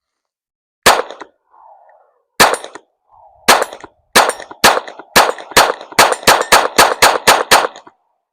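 Rifle with a 3D-printed forced-reset trigger firing: three single shots with uneven pauses, then a fast string of about eleven shots at roughly three a second. The stop-start firing goes with the trigger trouble the shooter describes, which he blames on the 3D-printed trigger needing replacement.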